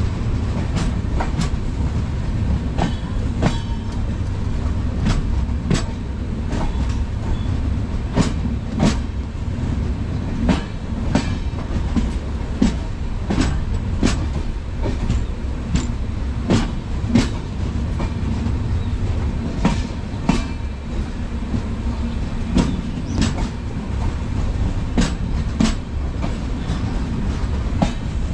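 Passenger train rolling slowly out of a station: a steady low rumble with sharp wheel clacks over rail joints, often in pairs, about one or two a second.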